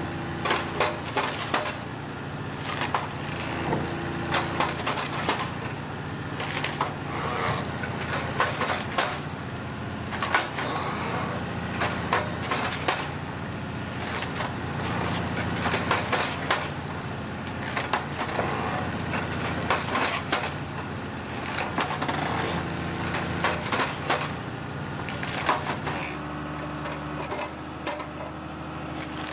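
Naarva S23 shear head's blade cracking and splintering through birch stems, repeated every second or two, over the steady running of the tractor engine that powers it.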